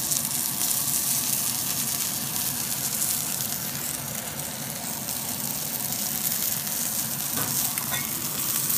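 Rump steak sizzling steadily as it fries in hot oil in a black pan.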